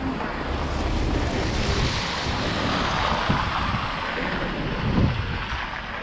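Wind rushing over the microphone as a steady wash of noise, with a couple of dull thumps about three and five seconds in.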